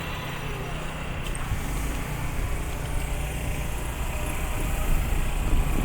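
Low rumble of a passing vehicle, growing gradually louder toward the end.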